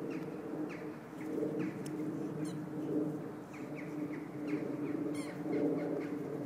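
Wild birds calling: short falling chirps a few times a second and a quick high trill twice, about two and a half and five seconds in, over a low pitched sound that swells and fades.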